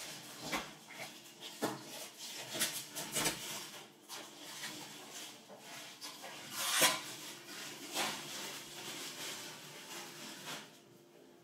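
Plastic protective film crinkling as it is peeled off and handled, with hands rubbing and pressing a clear PETG sheet onto a wooden desktop: irregular rustles and light knocks, the loudest about seven seconds in, dying away near the end.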